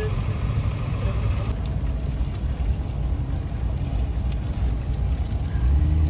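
Steady low rumble of vehicles moving along a road, growing louder near the end.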